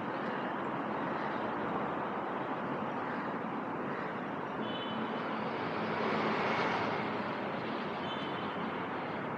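Steady rumble of distant vehicle noise, swelling for a moment about six seconds in, with a few faint high chirps.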